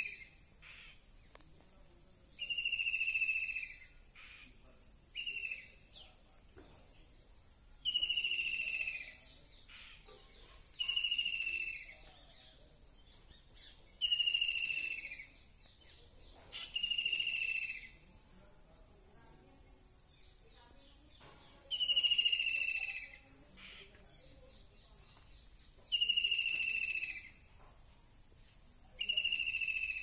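White-throated kingfisher calling, about nine loud falling calls of a second or so each, repeated every two to three seconds with one longer pause midway.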